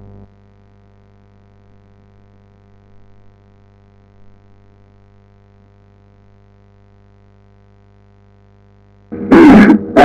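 Steady electrical mains hum on the audio line. About nine seconds in it is cut across by a loud, distorted vocal call lasting about half a second, and a second call starts right at the end.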